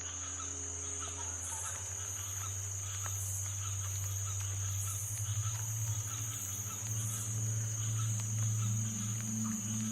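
Soundscape of chirping crickets with small bird-like chirps over a low sustained ambient drone, which grows stronger about halfway through.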